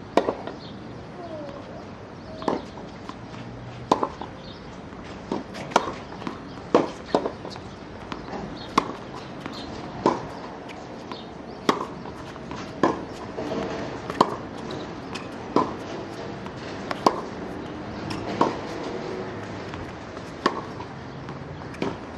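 A tennis rally on a hard court: sharp pops of a racket striking the ball and the ball bouncing, repeating about every second and a half.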